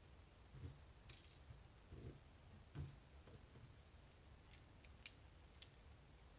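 Faint, scattered small metallic clicks and soft taps of tiny lock pins and picking tools being handled while a dimple lock cylinder is taken apart. The sharpest click comes about a second in.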